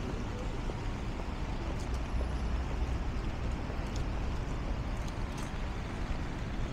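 Steady city street traffic on a wet road: a low rumble of cars and buses going by, under a broad, even hiss of tyres on the rain-soaked pavement.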